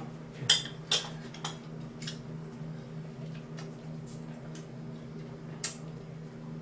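A few sharp clinks of utensils against dishes, several in the first two seconds and one more near the end, over a steady low hum.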